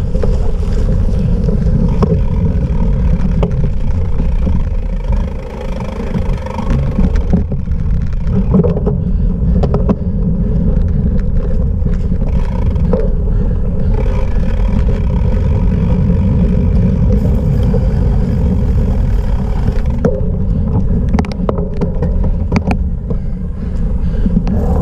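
Cyclocross bike riding over rough off-road ground: a steady heavy rumble with wind buffeting the microphone, and scattered clicks and rattles from the bike.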